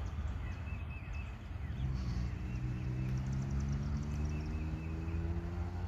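A low engine hum that rises slowly and steadily in pitch over a few seconds, with birds chirping.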